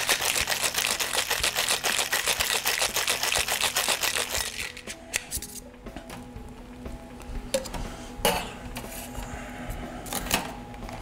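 Ice rattling fast and hard inside a metal cocktail shaker as it is shaken, for about the first four and a half seconds. Then the shaking stops, leaving soft background music with a few separate clinks and knocks as the shaker is handled.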